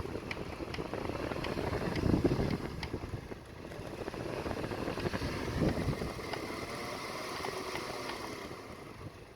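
Small homemade fan driven by a humidifier motor, winding down after being switched off. Its running noise fades away over the last few seconds, with a couple of louder low gusts of air along the way.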